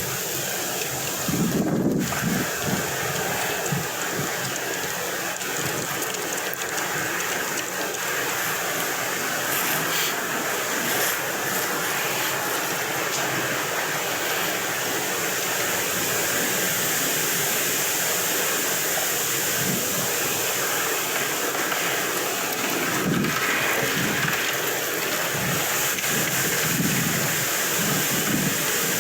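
Wind blowing across the microphone: a steady rushing hiss with low rumbling gusts, strongest about two seconds in and near the end.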